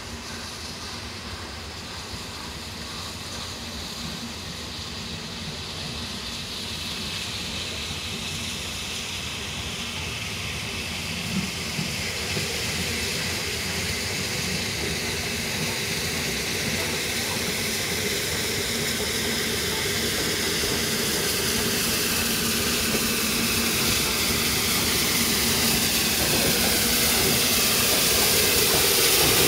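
The Peppercorn A1 Pacific steam locomotive Tornado draws nearer with its train, the hiss and running noise of the engine growing steadily louder.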